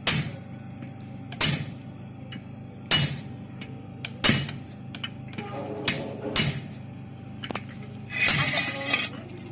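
Hammer blows on metal, one about every one and a half seconds, each with a short ring; a longer metallic clatter near the end.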